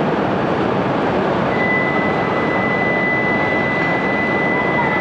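Steady, loud rushing noise from the coupled E5 and E6 series Shinkansen standing at the platform. A steady high-pitched tone joins about one and a half seconds in.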